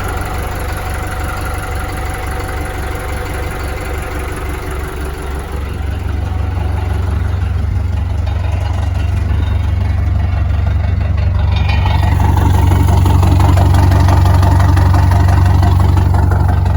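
Boat engine running at a steady idle, then speeding up about five or six seconds in and growing louder over the next several seconds.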